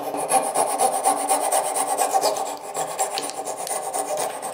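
Fret saw cutting through wood with quick, even back-and-forth strokes, sawing out the waste of a bridle joint.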